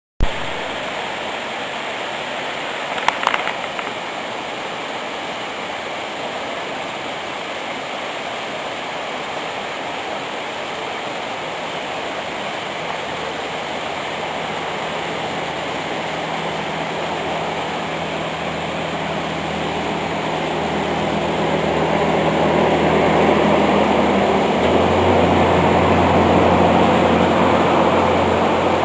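Waterfall water rushing steadily, with a short knock about three seconds in. From about halfway a low engine drone joins it and grows louder near the end.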